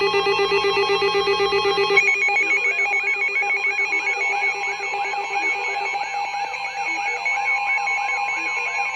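Several weather alert radios sounding their alarms at once: a dense mix of rapid beeping tones, part of which cuts out about two seconds in. A repeating up-and-down warbling siren sound, about three sweeps a second, then takes over, and a steady high alert tone joins near the end.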